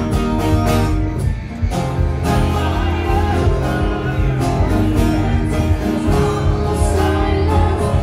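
Live band playing with strummed acoustic guitars and keyboard, with vocals over them. The music thins briefly about a second and a half in, then carries on.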